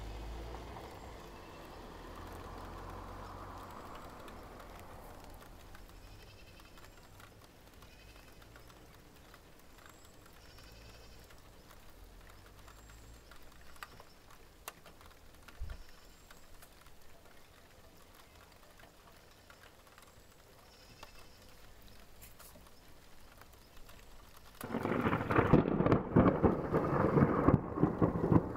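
Thunder rumbling and dying away over the first few seconds, then a quiet stretch of light rain, until a sudden, very loud close thunderclap about 25 seconds in that keeps rumbling.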